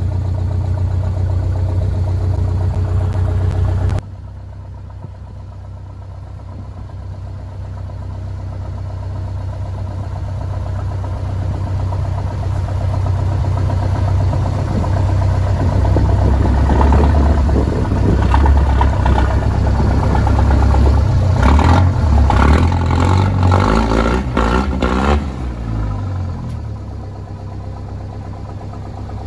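Mercedes engine of a rebuilt GAZ-63 off-road truck running and revving under load as the truck crawls up onto concrete blocks. It gets louder through the middle, with a run of clattering knocks about three-quarters of the way through, then the revs fall away.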